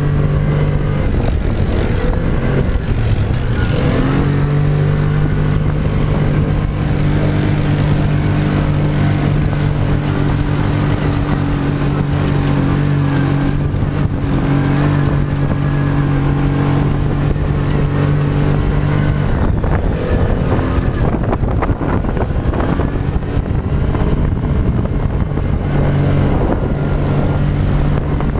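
Dune buggy engine running under load, heard from a camera on the buggy's roll cage, with steady wind and driving noise. The engine's steady note drops away about a second in, comes back about four seconds in, eases off again around nineteen seconds and picks up once more near the end.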